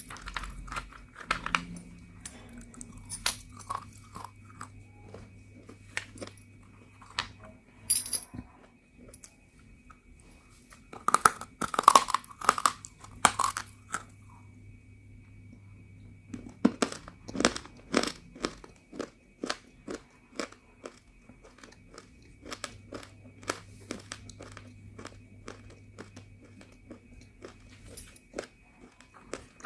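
Home-roasted multani mitti (fuller's earth clay) being bitten and chewed: dry, crisp crunches. The loudest cluster comes about eleven to fourteen seconds in, followed by a run of quick chewing crunches.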